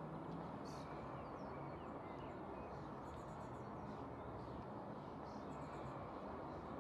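Quiet street ambience: a steady low background hum with faint, scattered bird chirps.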